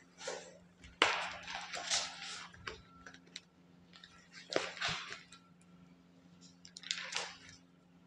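A sharp knock about a second in, followed by rustling, then two more bursts of rustling around five and seven seconds, over a faint steady low hum.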